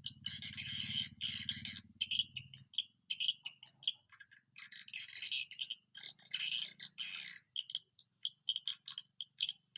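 Swiftlet calls: rapid, busy twittering chirps in repeated bursts, with a low hum underneath that fades after the first couple of seconds.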